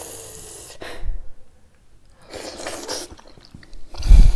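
Close-up mouth sounds of eating by hand: breathy slurping and chewing noises, with a short knock about a second in and a loud sneeze-like puff of breath near the end.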